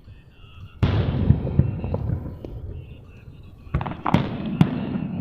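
Aerial fireworks shells bursting: a sudden loud boom about a second in that trails off over the next second or so, then several more sharp bangs in quick succession near the end.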